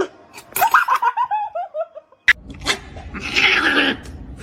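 A quick run of high-pitched laughter, pulses falling steadily in pitch. After a break, a loud harsh noisy burst of about a second follows near the end.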